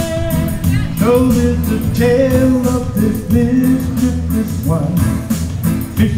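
A man sings a Hawaiian ballad over live guitar and band accompaniment.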